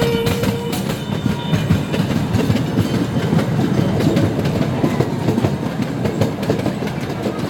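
Small amusement-park ride train running slowly along its track, heard from aboard: a steady rumble of wheels and cars with clacking over the rail joints.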